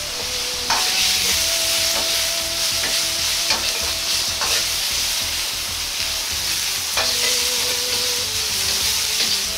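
Daikon radish cubes sizzling in oil in a hot Chinese wok over a high flame, while a metal ladle stirs them, scraping and clinking a few times against the wok. The sizzle gets louder about a second in.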